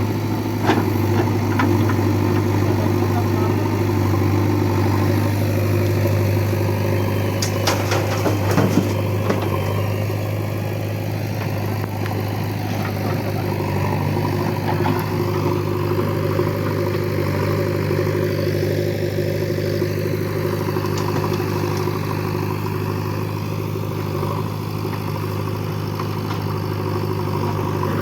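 Diesel engine of heavy earthmoving machinery running steadily, with a brief burst of clattering knocks about eight seconds in.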